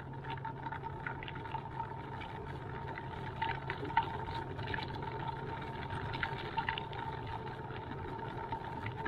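A small vehicle rolling along a paved path: a steady hum with a constant thin whine, and scattered light clicks and rattles.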